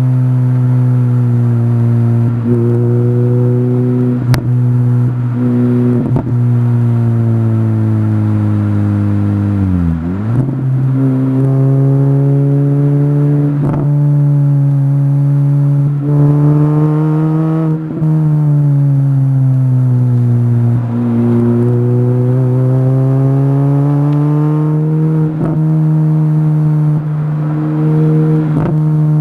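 A Mini Cooper race car's engine heard from inside the cockpit, running steadily at moderate revs. Its pitch dips sharply and recovers about ten seconds in, then rises and falls gently through the corners, with a few short clicks and knocks from the car.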